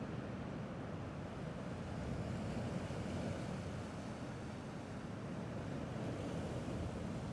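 Gentle sea waves washing steadily against the rocky shore, a low, even wash with no distinct breaking waves.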